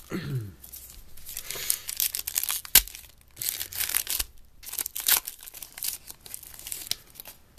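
Trading-card pack wrapper being torn open and crinkled: irregular bursts of tearing and rustling, with one sharp click near the middle.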